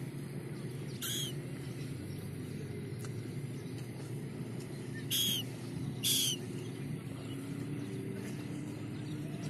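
Gulls calling: three short, high calls, one about a second in and two close together past the middle, over a steady low background noise.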